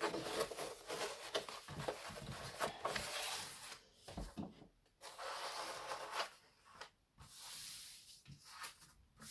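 Rustling and rubbing as a large diamond painting canvas is handled and spread out, in irregular bursts with short pauses between.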